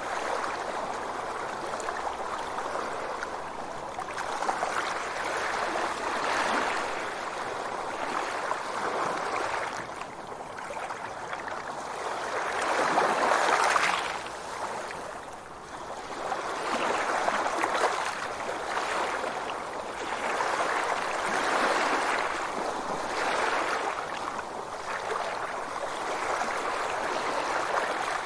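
Sea waves washing in and drawing back: a continuous rush of water that swells and fades every few seconds, loudest about halfway through.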